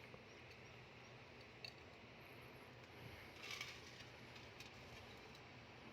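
Near silence: faint background hiss, with a short tick about one and a half seconds in and a soft brief rustle a little past halfway.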